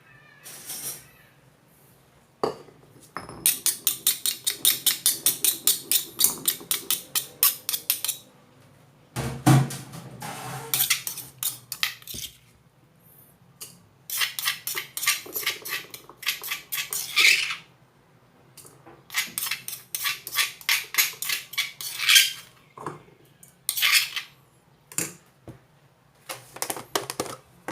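Pestle pounding chili, garlic and lime in a mortar to make a spicy dipping sauce: several bursts of rapid strikes, about four a second, with short pauses between them and some scraping and clinking.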